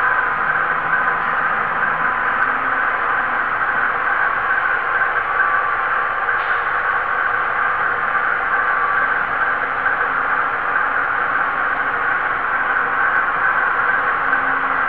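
Steady static hiss from a model railroad camera car's onboard camera audio, strongest in the upper midrange and unbroken throughout.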